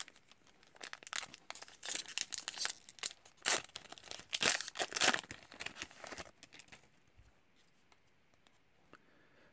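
Hockey card pack wrapper being torn and crinkled by hand: a run of sharp crackles and rustles that stops about six seconds in.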